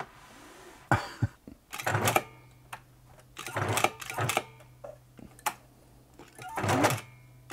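Singer Futura 2002 electronic sewing machine run in several short bursts. A steady motor hum comes in about two seconds in, with the clatter of the needle and feed mechanism. The machine is stuck sewing in reverse.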